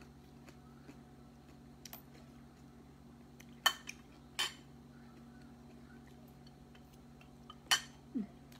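Metal spoon clinking against a dinner plate while eating: three sharp clinks, a little under four seconds in, again about half a second later, and near the end, with a few faint taps between, over a faint steady hum.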